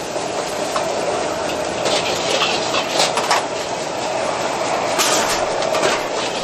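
Metal ladle scraping and clanking against a steel wok as fried rice is stir-fried, with a few sharper clanks. Under it runs the steady noise of the gas wok burner and the frying.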